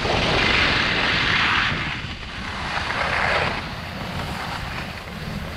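Skis scraping over hard-packed groomed snow in two hissing swells of turning, over a steady rush of wind on the microphone. The sound drops lower for the last couple of seconds as the skier reaches the flat near the lift.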